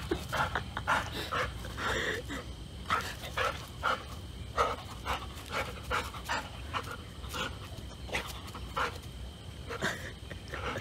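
A dog panting in a steady rhythm of about two breaths a second.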